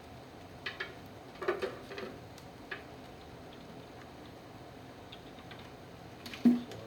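Light clicks and taps of an ECU and its wiring connector being handled, several in the first three seconds, then one louder knock near the end.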